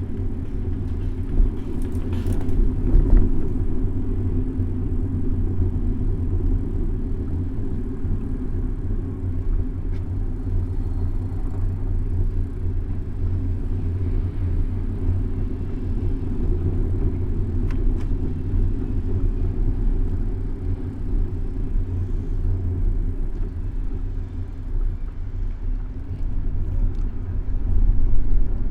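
Steady low rumble of a bicycle ride heard through a bike-mounted camera's microphone: wind and road noise, with a few faint clicks.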